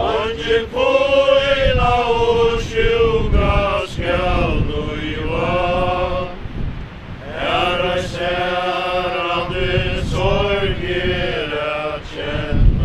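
A crowd of mourners singing a slow hymn together in long held notes, phrase by phrase, with wind buffeting the microphone underneath.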